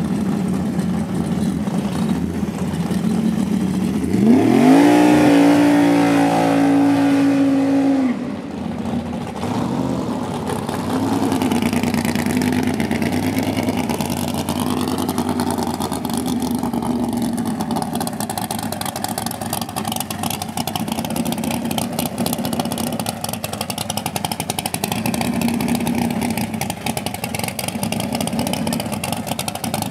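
Drag race car's engine idling, then revved sharply about four seconds in and held at high revs for some four seconds during a test hit. It drops off suddenly and runs on at low revs.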